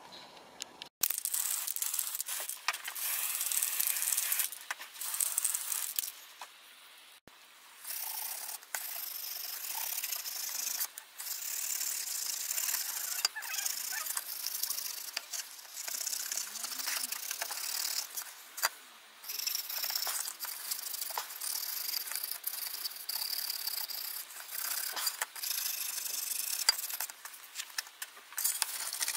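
Wire wool scrubbing over a black-painted, hammer-dimpled aluminium sheet to rub the matte spray paint back off: a scratchy rubbing in uneven strokes, with a pause of about two seconds early on and a shorter one about two-thirds of the way through.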